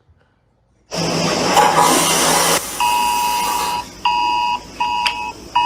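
Emergency alert alarm audio: after about a second of silence, a loud hissing noise burst lasting under two seconds, then repeated electronic alarm beeps, each about a second long with short gaps, a low and a high tone sounding together.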